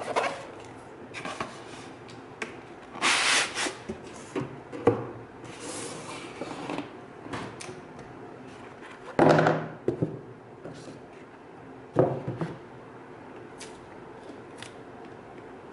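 Cardboard packaging handled by hand: the shipping carton and the shrink-wrapped iPad retail box scrape and rustle as the box is slid out from between its moulded pulp end cushions. There are a few sharp clicks and two harder knocks, about nine and twelve seconds in.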